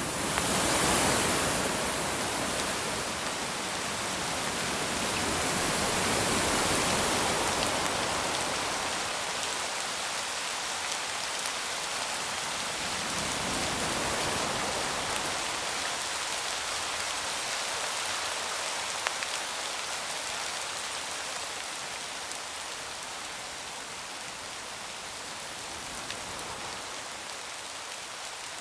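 Rain and wind sound effect: a steady hiss of rain with many small drop ticks, swelling with gusts of wind about a second in, again around six to seven seconds and around fourteen seconds, then settling into even, lighter rain.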